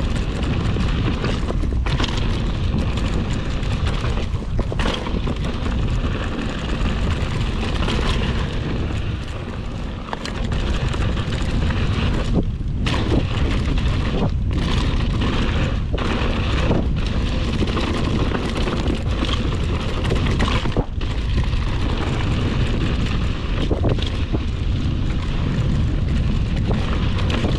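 Wind rushing over an action camera's microphone and a mountain bike's tyres rumbling on a dry dirt trail during a fast descent. Now and then the bike knocks and rattles over bumps and roots.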